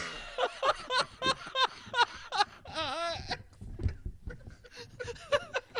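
A laughing sound effect: a run of short, quick laughs, about three a second, for around three seconds, then softer snickering fragments.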